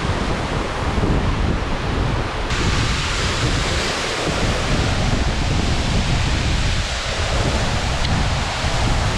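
Steady rush of a 60 m plunge waterfall pouring into its pool, with a low rumble under it. The hiss turns suddenly brighter about two and a half seconds in.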